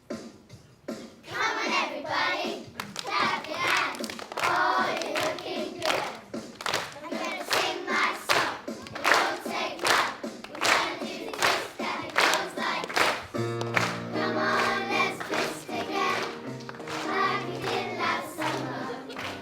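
School choir singing a song from a 1960s-themed concert, with steady rhythmic clapping on the beat. About thirteen seconds in, sustained low accompanying notes join the singing.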